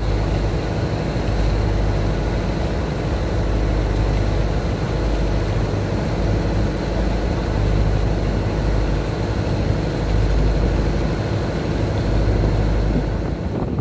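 A heavy engine running steadily: an unbroken low hum with a wash of noise over it.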